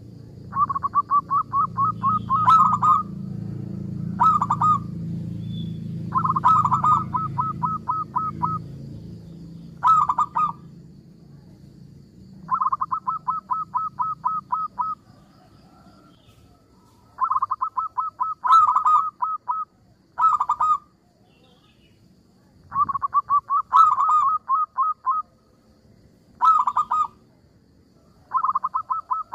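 Zebra dove (perkutut) calling: about ten bouts of quick, evenly spaced staccato cooing notes, some short and some running two seconds or more, with brief pauses between. A low rumble lies underneath for the first several seconds.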